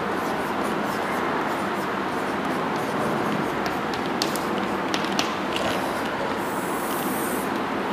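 Chalk tapping and scratching on a blackboard as a line of words is written, with a longer scrape near the end, over a steady background noise.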